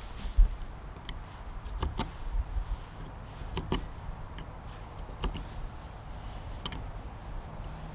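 Flat-blade screwdriver scraping and picking at the screw heads of a corroded metal deck plate, cleaning out the slots, with a short sharp scratch about every second or so. A low thump comes about half a second in, over a steady low rumble.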